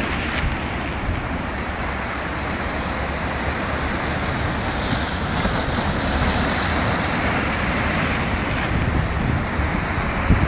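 Sea waves breaking and washing over boulders on a rocky shore, a steady rushing surf with wind buffeting the microphone. The hiss of the surf grows louder about five seconds in as a wave throws spray over the rocks, and eases off near nine seconds.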